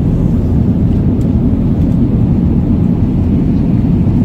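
Steady low rumble of a jet airliner's cabin in flight: engine and airflow drone, even throughout.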